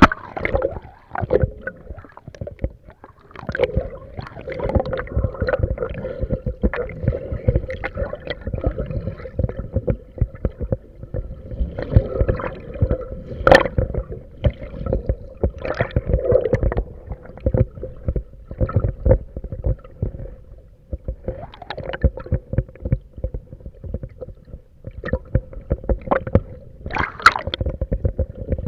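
Water sloshing and slapping against a windsurf board in irregular thumps and splashes, with a steady hum underneath.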